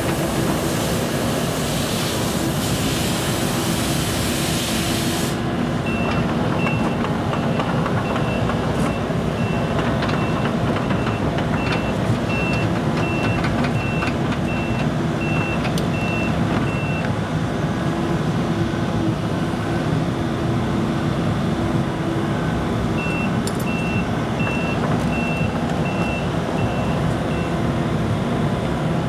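Case CX75C SR mini excavator's diesel engine running steadily while it digs and swings. A high backup alarm beeps at an even pace for about ten seconds starting some six seconds in, and again for about five seconds later on. A hiss fills the first few seconds.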